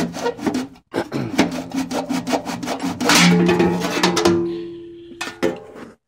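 Close rubbing and scraping against the motor housing of a vintage Spencer portable vacuum, a run of scrapes and clicks. A low steady hum sits under it through the middle and fades away near the end.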